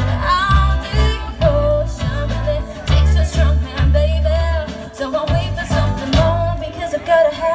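Live rock band playing through a PA: a woman sings a held, wavering melody over strummed electric guitars and keyboard, with a strong low end.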